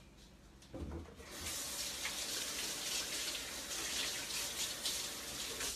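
Kitchen faucet running water into the sink, starting about a second and a half in after a low knock and shut off near the end.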